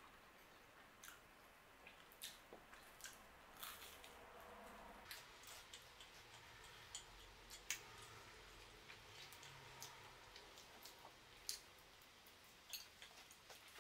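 Faint close-up chewing of a pinsa flatbread topped with mortadella and burrata: scattered soft clicks and wet mouth sounds, with a fresh bite taken near the end.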